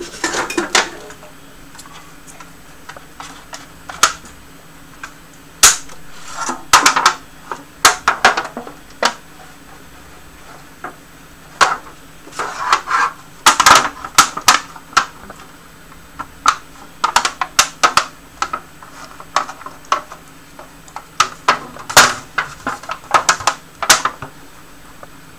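Irregular clicks, taps and crinkles of thin aluminium foil loaf pans being handled on a stainless-steel worktop while oil is brushed into them, often several in quick succession.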